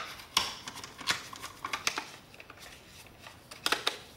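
Small Phillips screwdriver turning screws into the plastic back of a Dyson V11 cordless vacuum's cyclone assembly, with the vacuum body handled: irregular light clicks and scrapes of metal on plastic, several close together near the end.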